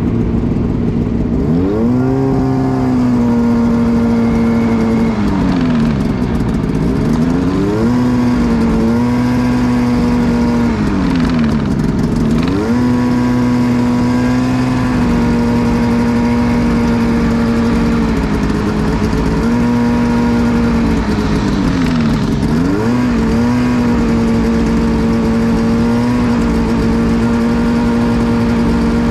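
Snowmobile engine running at high, steady revs on a trail. The revs drop sharply and climb back several times as the throttle is let off and opened again.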